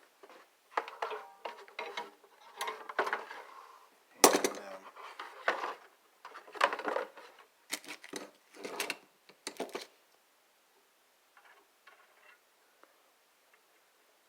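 Metal clinking and rattling as a piece of coat-hanger wire is handled and cut with side cutters, with one sharp snap about four seconds in. The clinks stop about ten seconds in.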